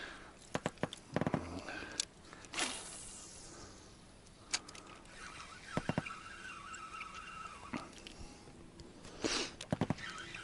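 Spinning reel being cranked to retrieve a wobbler: a steady whirring from about five to eight seconds in, after a swish of a cast about two and a half seconds in. Scattered clicks and knocks of rod and reel handling.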